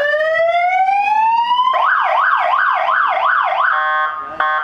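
Aftermarket electronic police-style siren horn fitted to a motorcycle, switched on. It gives one rising wail for nearly two seconds, then a fast warbling yelp of about three sweeps a second, then a steady blaring tone that cuts out briefly near the end.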